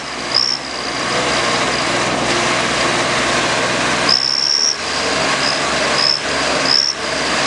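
Diesel tractor engines of a Swaraj 855 FE and a Sonalika, running steadily under heavy load while pulling against each other in a tug-of-war, heard as a constant noisy roar. A shrill whistle sounds over it in short blasts, about seven times, the longest about halfway through.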